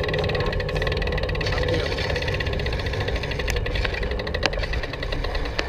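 Steady low rumble and hum of riding noise from a bicycle-mounted camera, wind and tyres on the trail. There is fast light ticking for about the first second and a half, then a few sharp clicks.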